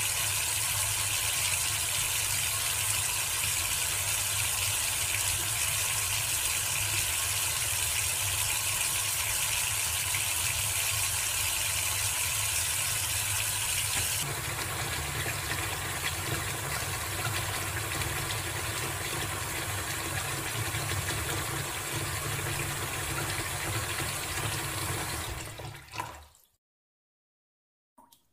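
Water running steadily from a tap into a ceramic washbasin as hands are washed and then a cup is rinsed under the stream. The sound changes in character about halfway through, then fades and cuts off shortly before the end.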